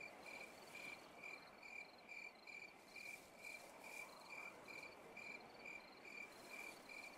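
Faint crickets chirping in a steady, even rhythm, a little over two chirps a second, over a soft hiss of night ambience.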